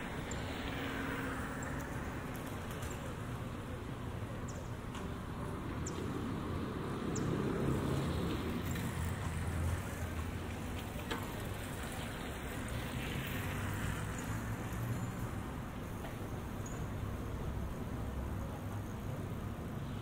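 Quiet city street ambience: a steady low rumble of distant traffic, with a scooter and bicycles passing close by. A louder pass swells and fades about seven to nine seconds in, and a fainter hiss of a passing wheel fades away twice, once near the start and once a few seconds after the middle.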